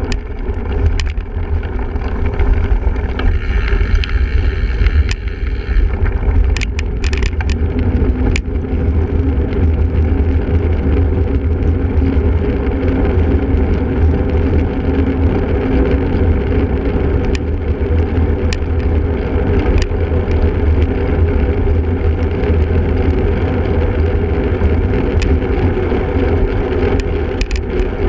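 Single-speed cyclocross bike ridden over rough ground at race pace: a steady low rumble of wind buffeting the microphone and tyres rolling, with scattered sharp clicks and rattles from the bike. The clicks bunch together about six to eight seconds in.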